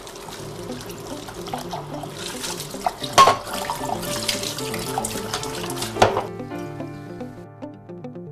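Kitchen tap running into a sink while dishes are washed, with a few sharp clinks of crockery. The water cuts off suddenly about six seconds in, leaving only the instrumental music that plays quietly underneath.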